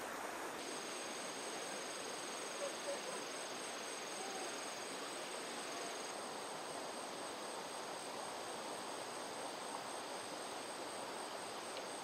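Insects trilling steadily in two high pitches over a constant even hiss.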